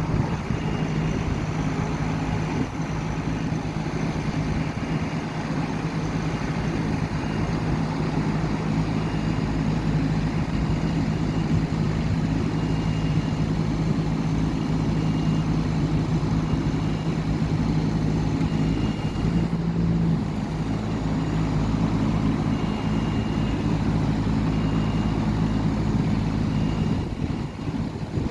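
Diesel engine of an IMER R23DA spider lift running steadily while its hydraulic boom is raised, with short high beeps repeating every second or so, typical of the lift's motion alarm.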